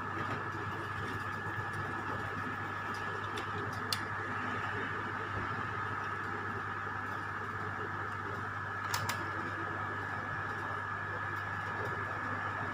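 Steady electrical hum with a higher constant whine, with a few faint short clicks about four seconds in and again about nine seconds in.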